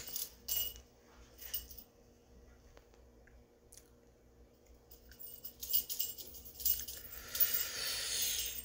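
Small bell on a feathered cat toy jingling as the toy is shaken: two short jingles early, a pause, then repeated shakes that run into continuous jingling near the end.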